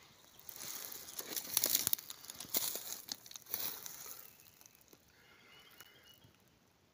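Crackling, crinkling rustle of dry material handled or trodden close by, loudest for about three seconds from about half a second in, then dying down to a faint rustle.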